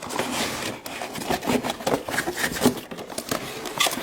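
Plastic toy playset parts being handled: a busy run of rubbing and scraping noises with small knocks.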